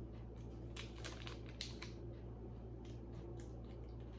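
Small metal jewelry pieces being handled, with light scattered clicks and clinks, over a low steady hum.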